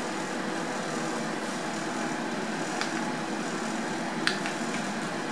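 Grow-tent fans running: a steady airy whoosh with a faint hum. A single sharp click comes about four seconds in.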